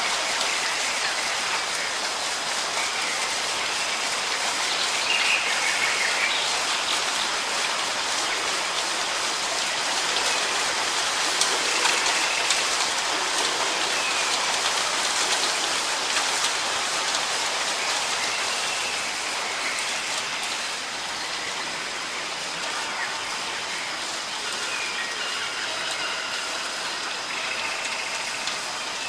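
Steady rain falling, a dense even hiss without a break.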